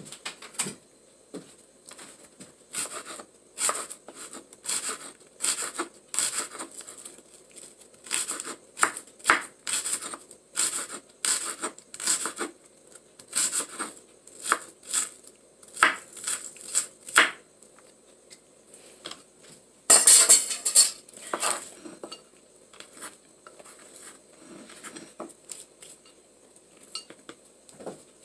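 Kitchen knife cutting shallots on a wooden cutting board: a run of short, uneven knocks a little over one a second, then a louder scraping rasp about twenty seconds in.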